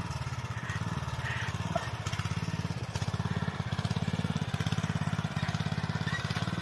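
Small engine of a walk-behind power tiller running steadily under load as its rotary tines churn soil up a slope.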